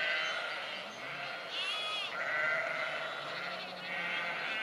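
Sheep bleating, several calls overlapping, with one loud arching bleat about two seconds in.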